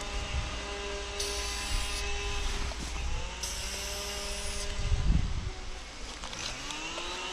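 Aerosol spray paint can hissing in two short bursts of about a second each as lines are sprayed. Underneath is a steady machine drone whose pitch bends up and down in the second half.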